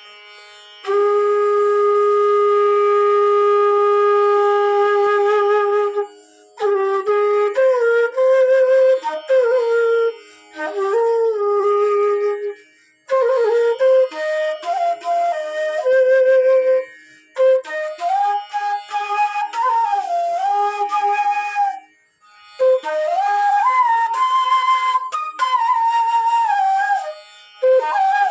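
G-sharp bass bamboo flute (bansuri) being played: a long, steady low note held for about five seconds, then a run of flowing melodic phrases with slides between notes, broken by short pauses for breath.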